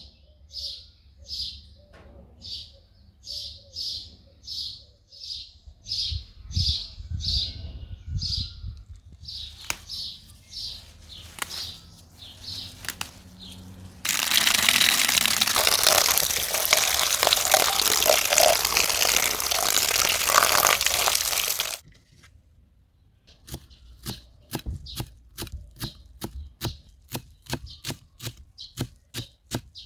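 Food-preparation sounds: a regular run of short scraping or tapping strokes at about two a second, then a loud steady rushing noise lasting several seconds, then sharp knife-like taps at about two a second near the end.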